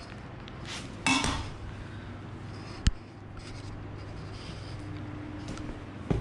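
Royal Enfield leather touring boots moving and stepping on a tiled floor: a rustle about a second in, a single sharp tap near three seconds, and a boot step near the end.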